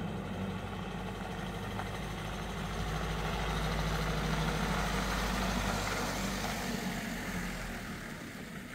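Mercedes-Benz Unimog U 5023 truck's four-cylinder diesel engine running as the truck pulls away at low speed. It grows louder as the truck comes close and passes, then fades as it drives off.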